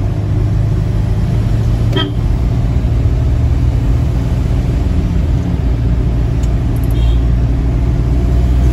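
Steady low drone of a car's engine and tyres heard from inside the cabin while driving. A brief horn toot comes about two seconds in.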